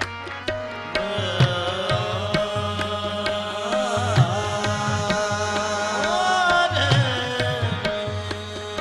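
A qawwali group performing a naat: a harmonium drone and tabla strokes, with a singer's voice coming in about a second in, sliding and ornamenting a slow melodic line over them.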